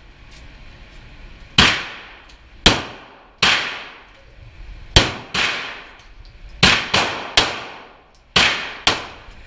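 About ten 9mm pistol shots fired at an uneven pace, some in quick pairs, each a sharp crack with a reverberant tail from the enclosed indoor range.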